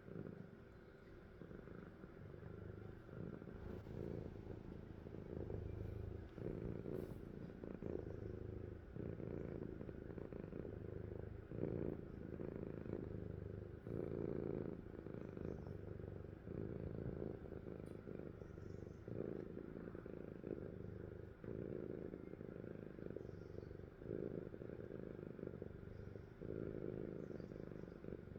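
Sleeping cat purring: a steady low rumble that swells and eases with each breath in and out, about every second or two.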